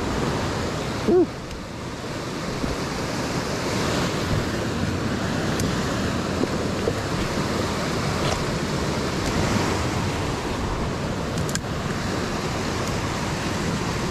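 Steady rushing of a flowing creek, with a brief louder sound about a second in and a few faint clicks.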